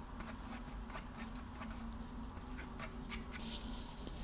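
Paintbrush stirring and scraping thick acrylic paint on paper: faint, quick scratchy strokes as white is mixed into orange to make a tint.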